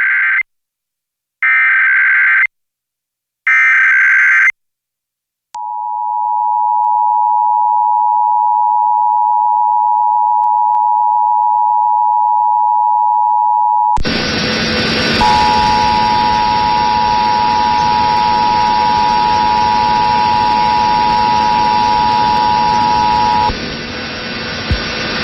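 Emergency Alert System test signal: three short screeching data bursts of the SAME header, then the steady two-tone attention signal (853 and 960 Hz together). About fourteen seconds in the audio switches to another station's hissy feed, where the same two-tone attention signal sounds again for about eight seconds and stops.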